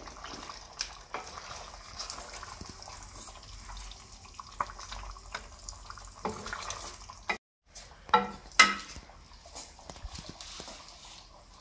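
Beef and yogurt sauce sizzling and bubbling in a steel karahi over a wood fire, being stirred with a wooden spoon that scrapes and clicks against the pan, as the yogurt's water cooks off. A couple of sharp knocks about eight seconds in are the loudest sounds.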